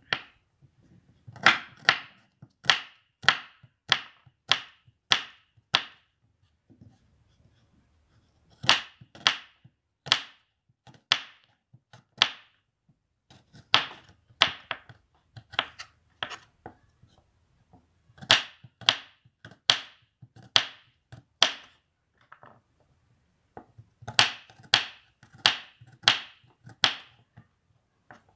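A kitchen knife slicing garlic cloves on a wooden cutting board: the blade knocks sharply on the board about one and a half times a second, in runs of several strokes broken by pauses of about two seconds.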